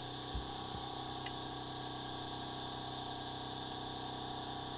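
A steady motor hum made of several even tones, with a high steady hiss above it. Two soft low knocks come about half a second in, and a faint click just after a second.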